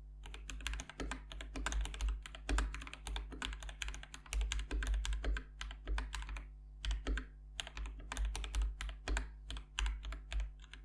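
Fast typing on a Dark Project KD87A tenkeyless mechanical keyboard with factory-lubed linear Gateron Cap Teal switches and PBT double-shot keycaps: a dense run of keystrokes with a short pause about two-thirds of the way through.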